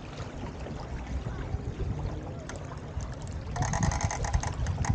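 Wind buffeting the microphone and water washing along the hull of a 29er skiff under sail, with a rapid rattling for about a second near the end.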